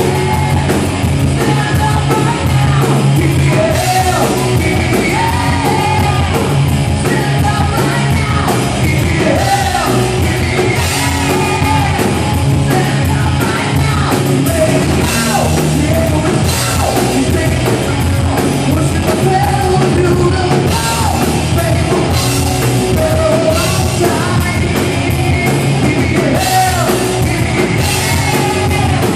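Live rock band playing loud: two electric guitars, bass guitar and drum kit under a male lead singer.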